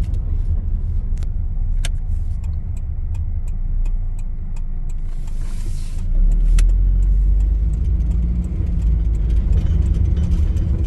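A 2000 Nissan Frontier's KA24DE four-cylinder engine running steadily as the truck drives, with low road rumble and a few light clicks; about six seconds in, a brief hiss passes and the engine note gets louder.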